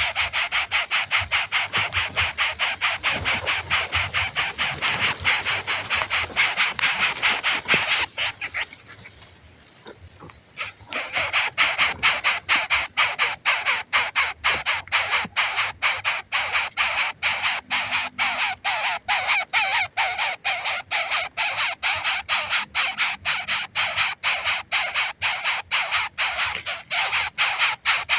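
A hungry young bird begging for food with a fast, steady run of harsh, raspy calls, about four or five a second. The calls pause for about two and a half seconds near the middle.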